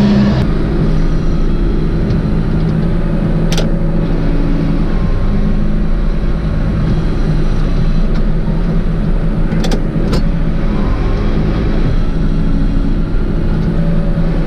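Four-cylinder John Deere tractor engine running steadily under load while pulling a cultivator. A few sharp clicks cut in, one about three and a half seconds in and two close together near ten seconds.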